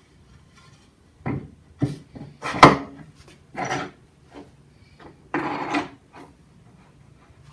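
A series of separate wooden knocks and short scraping sounds, about seven in all, the loudest a little before the middle. It is a board being handled and worked in a wooden Moxon vise.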